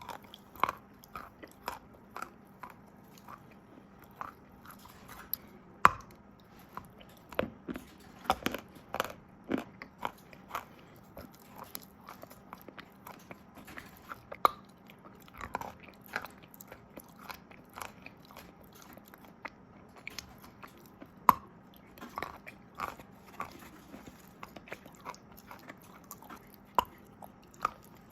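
Close-up biting and chewing of crunchy chalk coated in wet paste: irregular sharp crunches, several each second.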